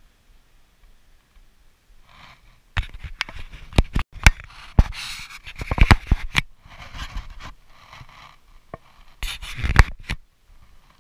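Hand handling the action camera right at its microphone: rough scraping and rubbing with a string of loud sharp clicks and knocks on the housing as the camera is adjusted, the loudest knock near the end.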